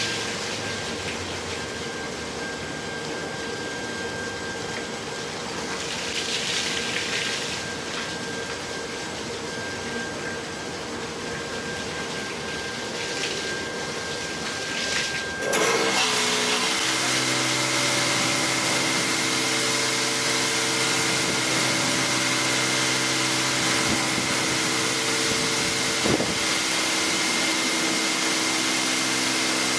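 LeisuWash touchless car wash machine at work: a steady spray hiss over the hum of its pumps and motors. About halfway through it switches abruptly to a louder, fuller hiss with several steady hums underneath.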